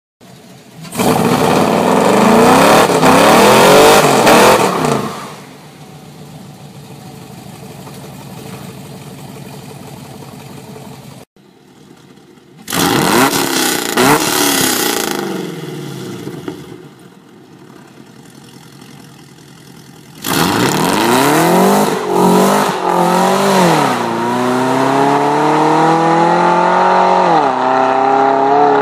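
A 2011 Camaro SS's L99 6.2-litre V8 with long-tube headers accelerating hard, loud, in three pulls with quieter running between them. In the last and longest pull, from about two-thirds in, the pitch climbs and then drops back several times as the automatic gearbox upshifts.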